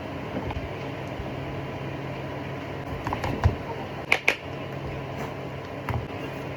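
Steady low mechanical hum, with a cluster of sharp clicks and knocks about three to four seconds in and another near the end.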